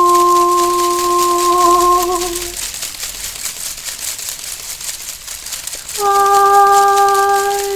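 Two long held musical tones. The first wavers slightly and fades out about two and a half seconds in. After a quiet gap, a second, slightly higher note starts about six seconds in and holds steady.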